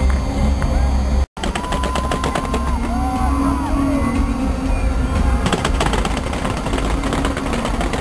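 Fireworks going off in rapid crackling volleys over music, with a heavy low rumble and a few gliding whistles. The sound drops out completely for a split second about a second in.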